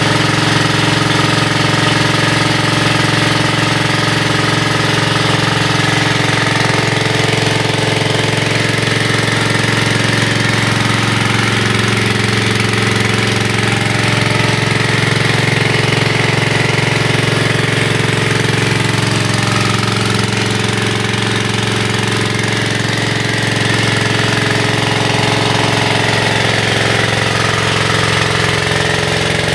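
Small 1.5 hp single-cylinder diesel engine of an HTP high-pressure vehicle-washer pump set, running steadily at a constant speed.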